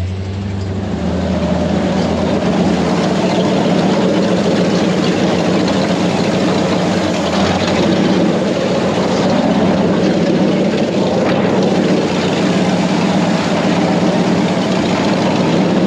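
Off-road truck driving slowly on a sandy dirt trail: the engine runs steadily under the noise of the tires and running gear.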